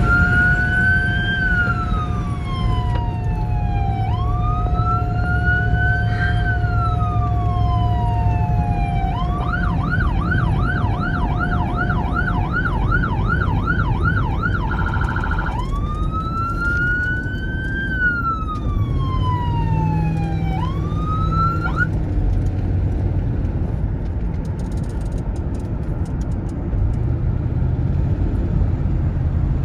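American police car electronic siren sounding a slow wail, switching to a fast yelp about 9 seconds in, with a brief buzz near 15 seconds, then back to the wail before cutting off about 22 seconds in. Car engine and road rumble run underneath throughout and are all that remains after the siren stops.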